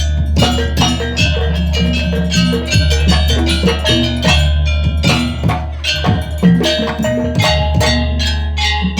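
Traditional East Javanese percussion ensemble playing a fast, steady rhythm: drums and wooden knocks under struck, tuned metal percussion.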